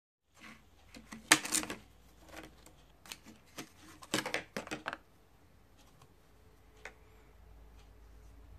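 Crinkling and clicking of a clear plastic blister pack with a card backing being handled and opened, and a small round plastic gauge being pried out of its plastic tray. The sharpest crackles come about a second and a half in and again from about four to five seconds in, then only a few faint ticks.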